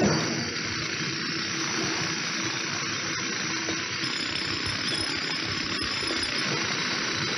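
Steady hissing, rattling noise of a rock drill working into granite, with a short knock right at the start.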